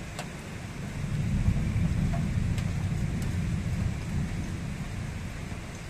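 Rolling thunder that swells about a second in and dies away over a few seconds, over the steady hiss of rain.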